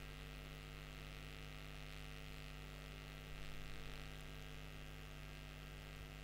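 Steady electrical hum, a stack of even tones with a faint hiss over it and no other sound.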